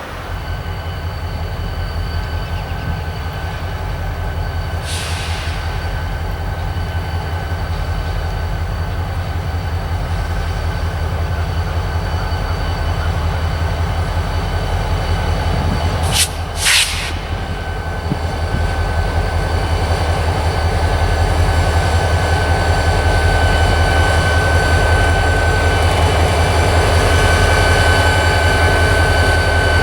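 Diesel train running steadily past, its low rumble growing louder toward the end, with a thin high whine held above it. Two short, sharp bursts of noise come about halfway through.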